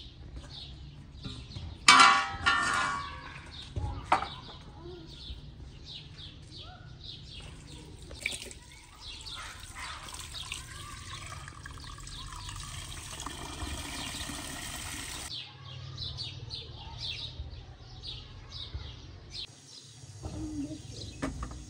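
Tap water runs in a steady stream into a steel pot of raw chicken for about seven seconds, then stops suddenly. About two seconds in there is a loud clatter, and small birds chirp throughout.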